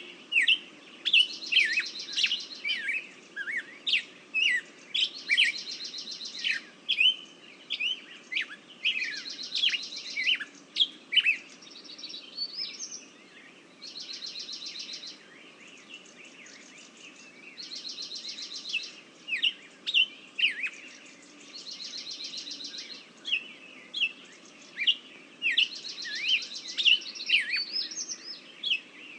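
Songbirds singing: a dense run of short, sharp chirps that drop in pitch, broken about every four seconds by a longer, high buzzy trill.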